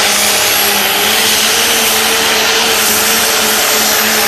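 Turbocharged diesel engine of a Ford pulling tractor running flat out under full load as it drags a weight-transfer sled down the track. The sound is a loud, steady roar with a high thin whine running over it.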